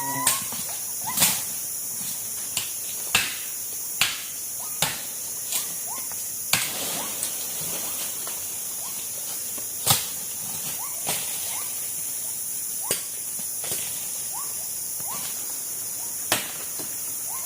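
A dozen or so sharp knocks at uneven intervals, over a steady high-pitched drone of rainforest insects.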